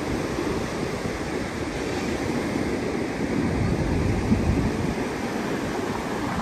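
Ocean surf breaking and washing up on a sandy beach, a steady rush of waves, with wind buffeting the microphone in low gusts that swell about four seconds in.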